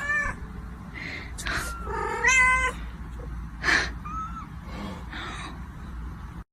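Cat meowing: a few separate meows, the longest about two seconds in and lasting under a second, with two short breathy noises between them.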